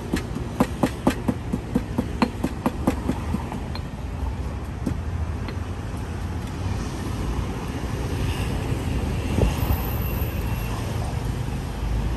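A quick run of sharp knocks from cooking utensils, about five a second, stopping about three seconds in, over a steady low rumble.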